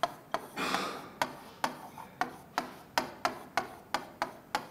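A pen tapping and scraping on a hard writing board as someone writes by hand, about a dozen short sharp taps roughly three a second, with a brief scratchy rub just under a second in.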